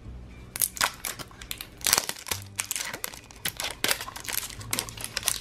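Crinkling and crackling of plastic toy packaging handled close to the microphone: a quick string of sharp crackles starting about half a second in.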